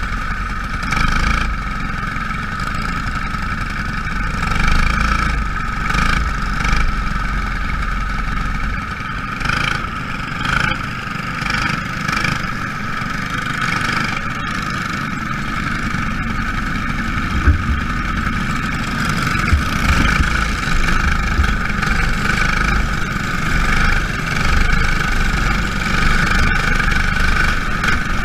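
Small racing car engines running hard during a Jr Lite feature race: a loud, steady, high-pitched drone that swells and eases a little throughout.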